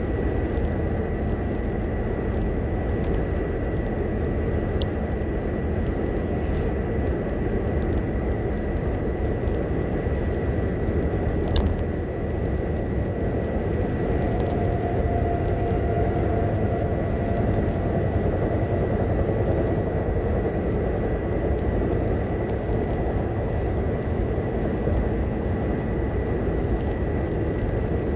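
Steady road and tyre noise with engine hum inside a car's cabin at highway speed, with a thin high-pitched tone running under it and a small click about twelve seconds in.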